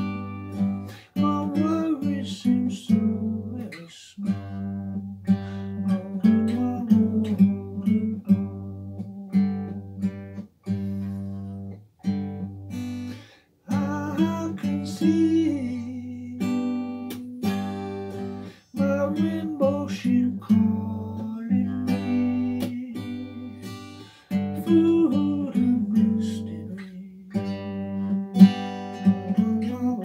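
Acoustic guitar strummed and picked in a slow chord pattern, with brief pauses between phrases.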